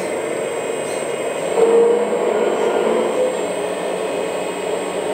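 Hydraulic pump of a 1/14 Kabolite K970 RC excavator running steadily with a whir as the hydraulic cutter attachment's jaws open, a brief louder hum rising about one and a half seconds in.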